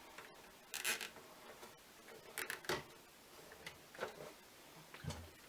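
A nylon zip tie being pulled tight around computer cables, heard as a few short scratchy strokes with some handling of the cables.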